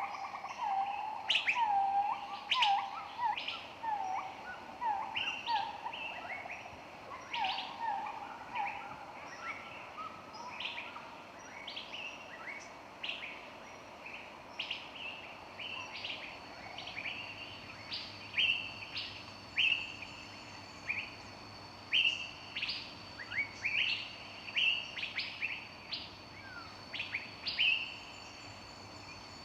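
Several songbirds chirping, with many short, sharp chirps repeating throughout. During the first ten seconds or so, one bird repeats a lower-pitched call about twice a second.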